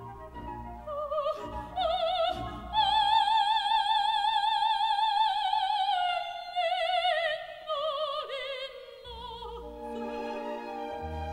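Coloratura soprano singing an operatic phrase with a wide vibrato, climbing to a long held high note and then gliding down step by step, over soft orchestral accompaniment.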